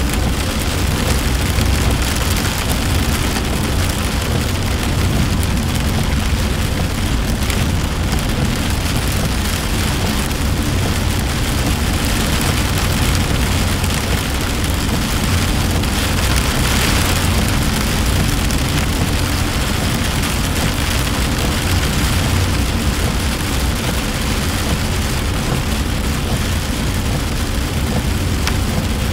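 Heavy rain hitting a moving car, heard from inside the cabin, over a steady low rumble of tyres on the wet road and the engine. The hiss swells briefly about halfway through.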